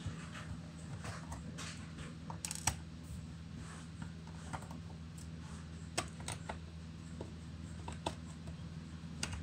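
Irregular small clicks and ticks of a screwdriver working the bottom-cover screws out of a Dell Inspiron 15-5570 laptop, with a few sharper taps, over a steady low hum.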